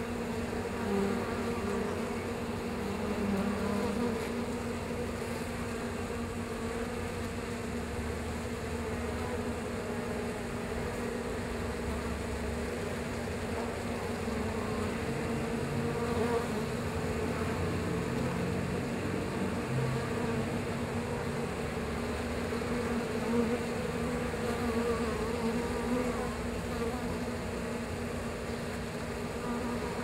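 Many honeybees buzzing together at the hive entrance: a steady, wavering hum of wingbeats.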